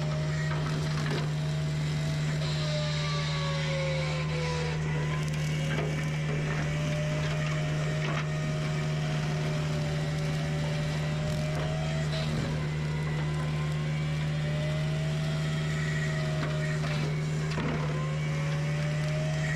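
Diesel engine of a compact tracked forestry mulcher running steadily under work, with a hydraulic whine that slowly rises and falls every few seconds. A few scattered knocks come through as the machine works.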